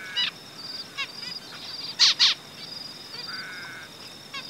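Zebra finches giving short nasal calls: the parents coaxing their fully fledged young out of the nest. Two loud calls come about two seconds in, and a longer call follows over a steady, fast, high twittering.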